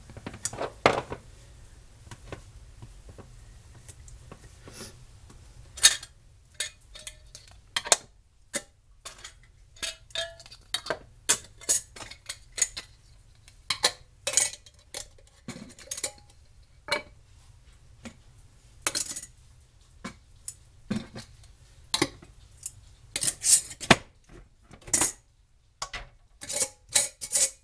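Metal canning lids and screw bands clinking and scraping against glass mason jars as the lids are set on and the bands screwed down: a long string of irregular light clinks and taps, some with a short metallic ring.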